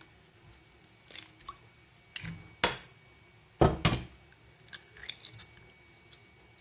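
Raw eggs knocked against a glass mixing bowl and cracked open: a few sharp knocks, the loudest about two and a half and three and a half seconds in, with light clinks between.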